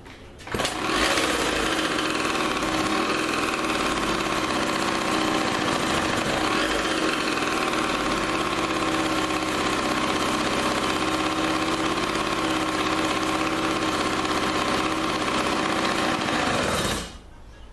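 Yamaha PW80's single-cylinder two-stroke engine starting on the kick about half a second in and running steadily at a fast idle, then cutting off abruptly near the end. Freshly fitted with a replacement carburetor and running on pre-mixed fuel, its idle is not yet set right.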